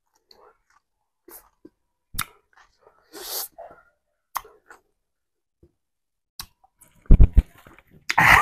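A man chewing a mouthful of raw flowering plant sprigs: scattered wet mouth clicks, a short sharp breath through the nose about three seconds in, and a few louder short mouth and throat sounds near the end.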